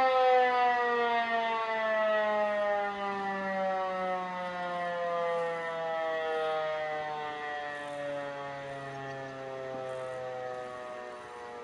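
E 57 electric motor siren winding down after the fire-alarm signal: its wail falls slowly and steadily in pitch and fades as the rotor coasts toward a stop.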